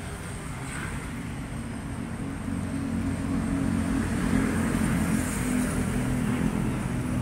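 Motorcycle engine running steadily at idle, growing louder about two and a half seconds in.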